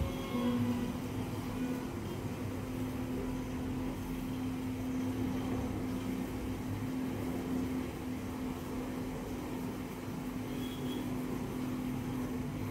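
Steady machine hum with a constant low tone over a low rumble, starting about half a second in.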